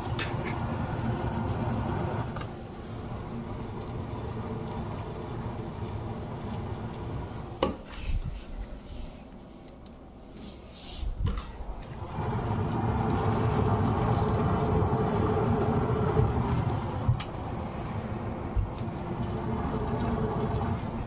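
Water boiling inside an Indesit washing machine's drum, a steady bubbling rumble. It drops away for a few seconds in the middle, where a plug clicks as it is handled at a power strip, then comes back louder for the rest.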